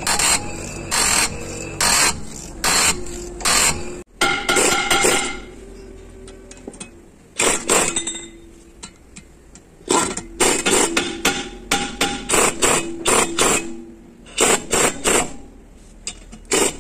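Pneumatic impact wrench hammering in short repeated bursts, spinning off the wheel nuts of a bus's drum-brake wheel hub.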